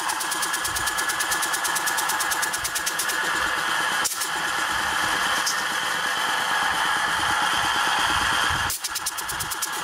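Old reciprocating compressor running steadily, belt-driven by a three-phase electric motor, with a rapid, even pumping beat from its piston. It is being run in to free up a piston that had been stuck.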